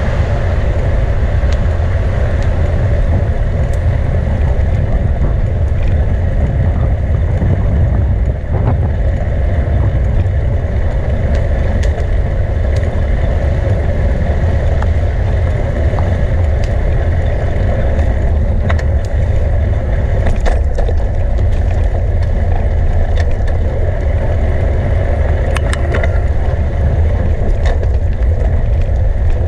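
Riding noise from a camera on a moving bicycle: a steady low wind rumble on the microphone over tyre and road noise, with scattered small clicks and rattles.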